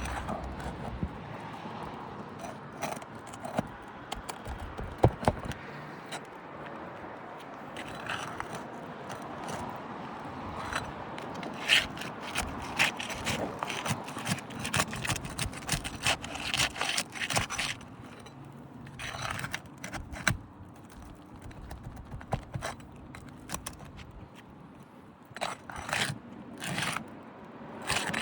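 Roofing snake tool scraping and prying under asphalt shingles, breaking the seal strips and working nails loose, with many sharp clicks and snaps. The shingles are brittle, which the roofer judges makes the roof not repairable.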